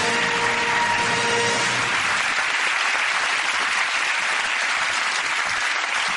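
Studio audience applauding, with a short stretch of music fading out during the first two seconds.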